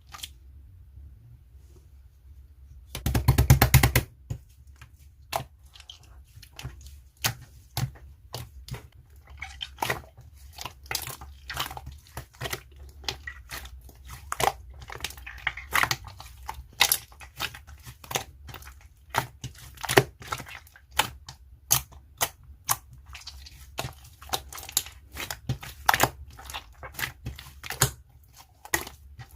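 Slime being played with by hand: sticky squelches and a steady run of irregular small clicks and pops as it is pressed and pulled, with a loud crackling burst lasting about a second near the start.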